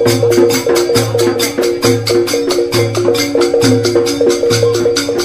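Background music with a fast, steady percussive beat over a repeating bass line.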